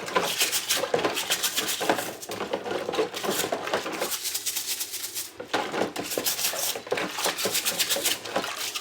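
Dishwasher filter parts being handled and cleaned: a dense run of clicks, rattles and scraping clatter.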